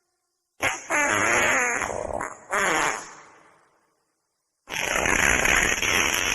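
Wet fart sounds: two farts with a wobbling pitch. The first starts about half a second in, breaks twice and lasts about two and a half seconds; the second starts near the end.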